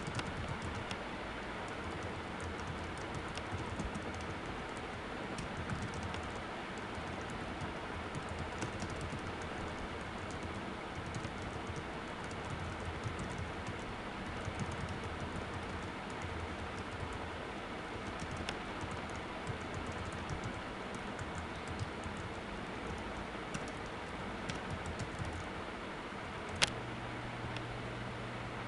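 Typing on a computer keyboard: a continuous run of quick key clicks over a steady hiss, with one sharper click near the end.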